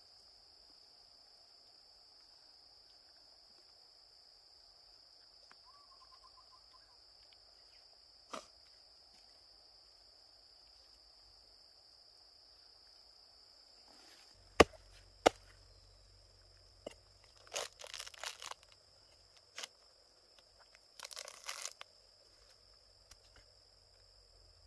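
Steady high-pitched insect drone of the forest. About halfway through come two sharp knocks, then bursts of crunching and crackling as the rotten, fibrous palm trunk is worked apart.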